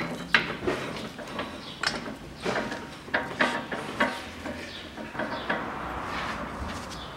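Irregular metal clinks and knocks as a Toyota Caldina front wheel hub and steering knuckle are handled and set in place on a shop press, ready for the hub to be pressed into its new bearing.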